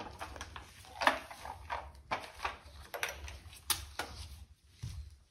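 Scattered knocks and clicks of hand tools and parts being picked up and set down, with footsteps on a workshop floor, over a low steady hum.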